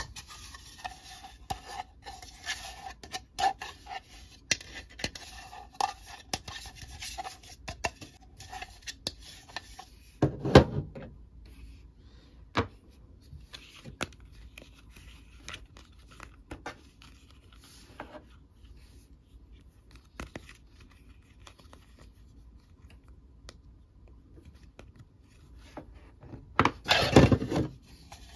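Hard plastic Mr. Potato Head parts being handled and fitted into the hollow plastic potato body: scattered small clicks and scrapes, with two louder bouts of knocking and rattling, one about a third of the way in and one near the end.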